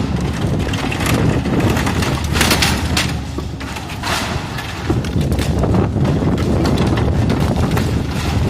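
Komatsu PC130F hydraulic excavator's diesel engine running under load during demolition, with a crashing burst of breaking building material about two and a half seconds in and scattered clatter of debris.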